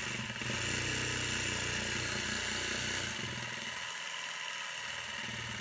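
Worx 20-volt cordless jigsaw driving a golf-ball percussion massage head, its motor running with a fast, even pulsing stroke. The sound shifts in pitch and strength about three seconds in, as happens when the trigger changes the speed.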